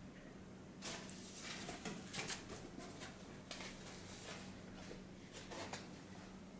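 Hands handling the plastic body of a car head unit: scattered light taps, scrapes and rubbing on the casing and its mounting brackets, starting about a second in and dying away near the end, over a faint steady low hum.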